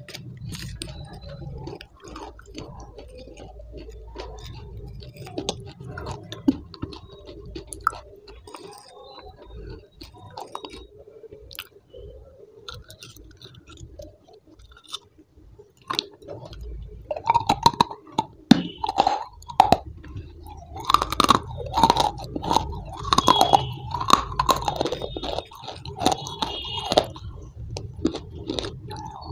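A person eating close to the microphone: chewing and crunching, with a spoon clicking and scraping against a glass. The mouth sounds get much louder and wetter about halfway through.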